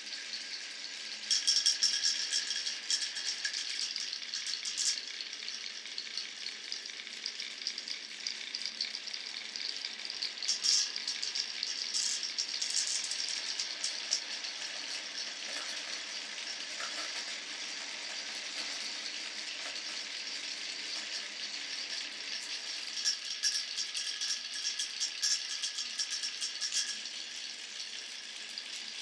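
Glass marbles rolling along wooden marble-run tracks, a steady rolling rattle. Clusters of rapid clicking and clattering come about a second in, again around eleven to thirteen seconds, and near the end.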